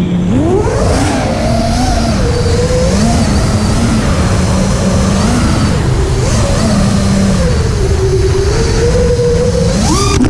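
FPV quadcopter's brushless motors whining, the pitch rising and falling over a few seconds at a time as the throttle changes, over a steady rushing noise.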